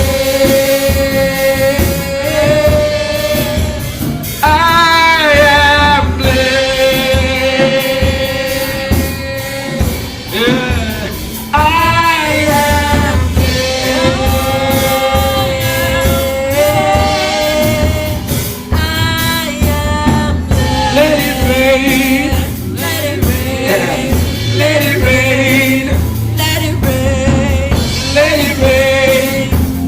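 Live gospel worship music: voices singing long, held, wavering notes over a continuous band accompaniment.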